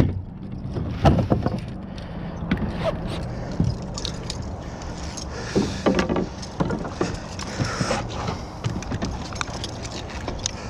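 Electric trolling motor on a small jon boat running steadily with a low hum, water washing around the boat, and a few sharp knocks against the boat about a second in and around six seconds in.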